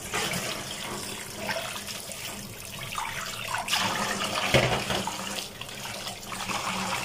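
Tap water running and splashing into a steel bowl of small mola fish in a stainless steel sink as the fish are rinsed, with a brief knock a little past halfway.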